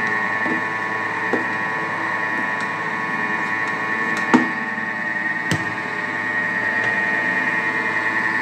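Vorwerk Thermomix motor running steadily with an even hum while it mixes dough. A spatula pushed through the lid opening knocks sharply a couple of times about halfway through.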